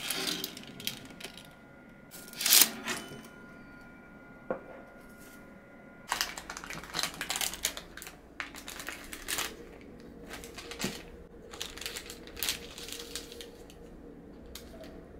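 A sharp click a few seconds in, then from about six seconds on a string of light taps and scrapes from a knife cutting a baked Oreo cake.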